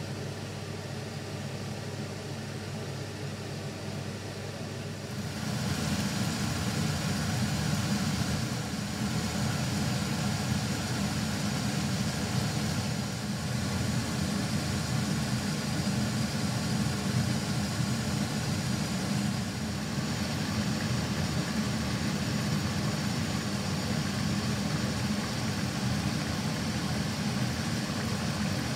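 Chicken and potato curry simmering in a pan: a dense, steady bubbling and sizzling over a low hum. It gets louder about five seconds in.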